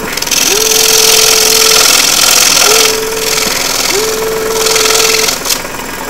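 Scroll saw cutting through thin wood, the blade giving a steady rasping hiss that swells and eases as the piece is fed. A steady mid-pitched tone comes in with a short upward slide, holds, and breaks off several times.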